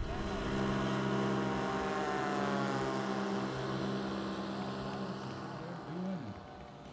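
Engine and propeller of a large-scale propeller-driven RC warbird model flying low on landing approach, giving a steady droning note. About six seconds in the pitch dips and recovers, then the sound fades as the plane passes.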